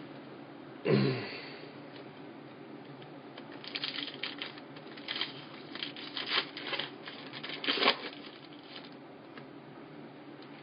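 Trading cards and packs being handled: a knock about a second in, then a run of quick, sharp clicks and crinkles for several seconds, over a low steady hum.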